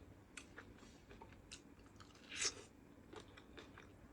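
Someone biting into and chewing cooked corn on the cob: a run of soft, irregular crunches as the kernels are bitten off and chewed, one louder crunch about two and a half seconds in.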